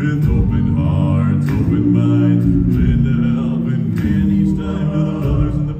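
Male a cappella vocal group singing live through a PA, close harmony over a deep bass voice holding low notes, with short clicks of vocal percussion keeping a beat.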